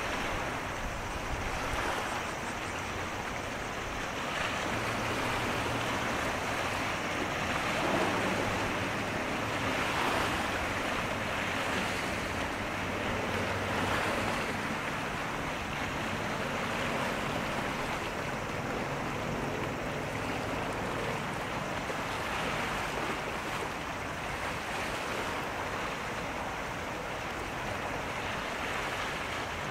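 Waves washing and wind on the microphone, swelling every few seconds, over a faint low steady drone of a ship's engines.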